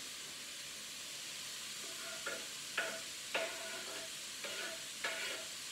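Onions, garlic and grated carrot sizzling steadily in oil in a frying pan, with a utensil stirring and scraping against the pan in several short strokes from about two seconds in.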